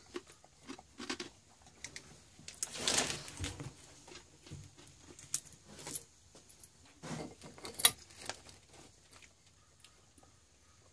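Scattered light clicks and taps of small objects being handled, with a brief rustle about three seconds in and a sharper click near eight seconds.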